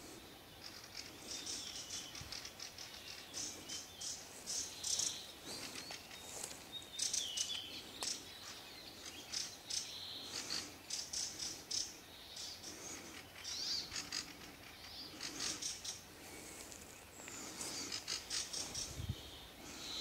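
Several songbirds singing in spring birch forest: many short, high chirps and quick rattling trills, one after another, with brief pauses between phrases.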